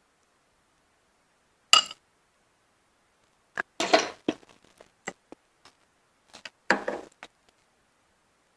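Hard clinks and clatters of snail shells and utensils against a plate while seafood is being eaten: one sharp clink about two seconds in, then two short bursts of clattering with a few light ticks between them.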